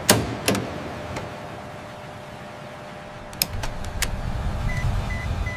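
Cockpit panel switches clicking a few times over a steady low motor hum, which grows louder about three and a half seconds in. Near the end come three short high electronic beeps, like a panel confirming a setting.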